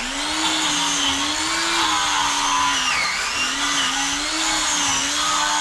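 A motorised power tool running continuously, its whine wavering up and down in pitch, with a brief dip in speed about three seconds in.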